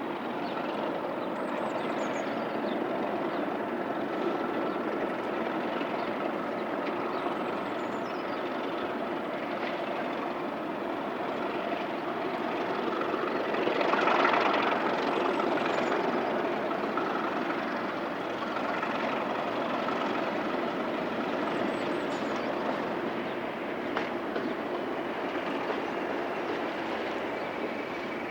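Class 37 diesel locomotives hauling a train, the engines running steadily. The sound swells to its loudest about halfway through, then eases off.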